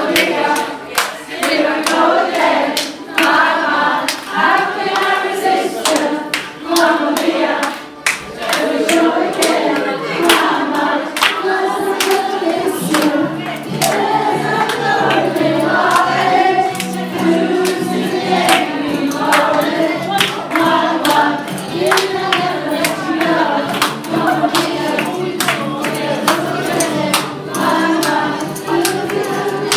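A group of voices singing together over backing music, with many sharp percussive hits through it.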